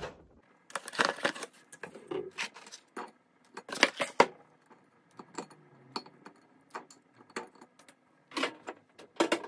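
Cardboard pizza box and plate being handled on a kitchen counter: a string of light knocks, taps and cardboard rustles, loudest about four seconds in and again just before the end.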